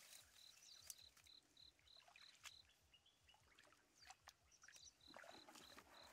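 Near silence with a faint high chirp repeated about three times a second in two runs, one at the start and one near the end, and a few faint clicks and splashes from hands working in shallow muddy water.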